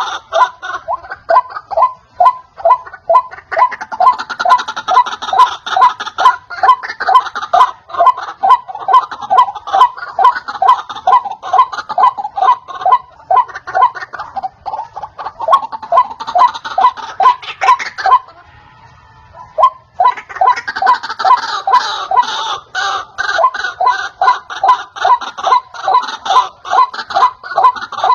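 White-breasted waterhen (ruak-ruak) calling: a loud, fast, even series of repeated notes, about three a second, that breaks off for about two seconds some two-thirds of the way through and then resumes.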